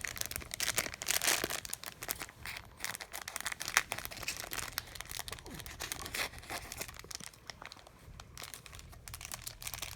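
Plastic packaging crinkling and tearing in quick, irregular crackles as small miniature pieces are unwrapped by hand.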